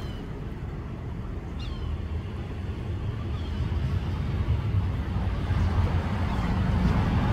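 Road traffic noise from the street, slowly getting louder toward the end as a vehicle approaches. Two short, high, falling calls cut through it near the start.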